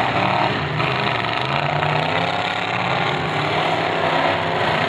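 Several demolition derby cars' engines running together at varying throttle, a loud steady mix of engine noise.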